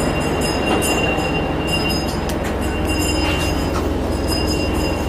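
A hand bell shaken steadily as the boarding signal before the train departs, ringing with pulsing high tones. Under it is the low steady hum of the idling KiHa 40/47 diesel railcar.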